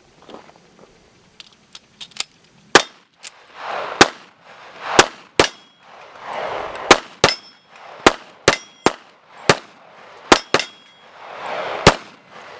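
.45 ACP pistol fired about a dozen times at an uneven pace, starting a few seconds in, at steel plate targets that clang when hit.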